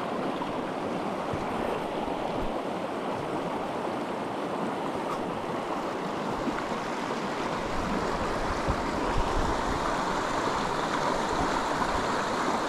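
Shallow, clear stream running steadily over rocks and a small riffle.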